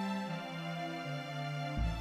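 Slow, sad instrumental film score: held chords over a bass line that steps down twice, with a deep low boom near the end.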